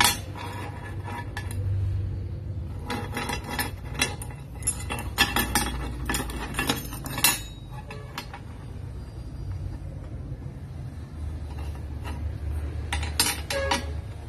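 Small curled flat-bar steel scroll pieces clinking and sliding against a steel plate as they are set in place by hand: a run of light metallic clinks in the first half and a few more near the end.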